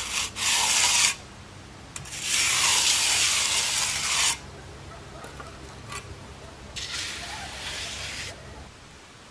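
Three long scraping strokes, a hand tool drawn across freshly poured concrete; the second stroke, about two seconds in, is the longest and loudest.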